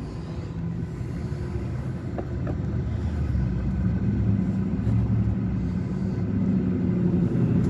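Low rumble of a motor vehicle engine running, slowly growing louder, with a couple of faint clicks about two and a half seconds in.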